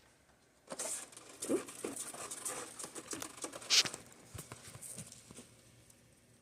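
A small pet scratching and rummaging in a Ricola cough-drop box: a busy run of quick scratches, taps and rustles on the box starting about a second in, with one sharper, louder scrape near the middle, thinning out near the end.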